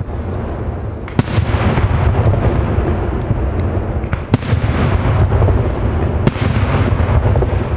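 Daytime fireworks shells bursting overhead in a dense, unbroken run of booms and bangs, with sharper, louder cracks about a second in, just past four seconds and just past six seconds.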